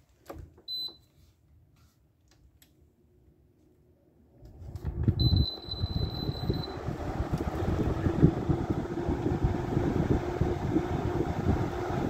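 GE window air conditioner being switched on: button clicks and a short beep about a second in, then a few seconds later its blower fan starts and runs steadily with a low hum, a longer beep sounding as it starts. This is the unit's first start of the season, fan only; the compressor has not yet kicked on.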